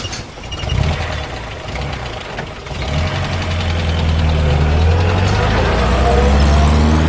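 A vehicle engine running with a deep, steady hum that swells about three seconds in and rises slightly in pitch near the end.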